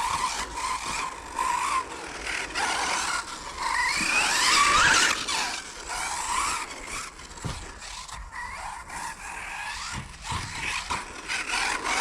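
Hobao Hyper 10 TT radio-controlled touring car running on a carpet track, its brushless electric motor whining in glides that rise and fall with the throttle.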